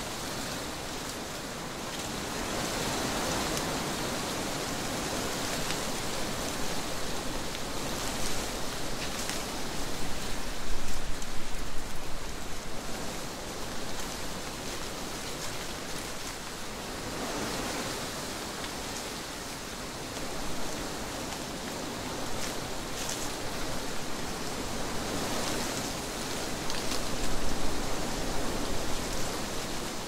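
Wind blowing through trees: a steady rushing that swells in gusts, strongest about a third of the way in and again near the end.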